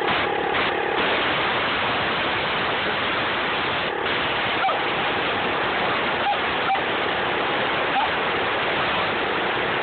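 Compressed air hissing steadily from an air compressor's hose nozzle. A Shetland sheepdog gives a few short barks at the blast, about four to eight seconds in.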